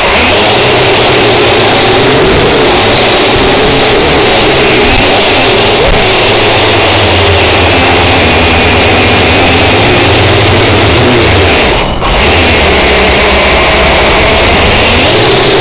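Small drone's electric motors and propellers buzzing loudly, picked up by its own onboard camera microphone. The pitch wavers up and down as the throttle changes, with a brief drop about twelve seconds in.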